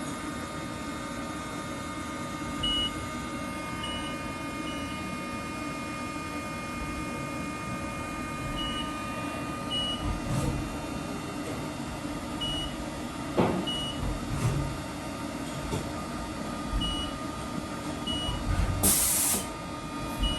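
2019 Haas VF-2SS vertical machining centre running with a steady mechanical hum made of several steady tones, short high beeps recurring every few seconds. A few sharp clicks and a brief burst of hiss near the end.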